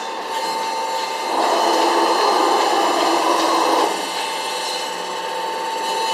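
Workshop machinery running with a steady high whine. A louder, coarse rushing noise rises about a second in and drops away about four seconds in.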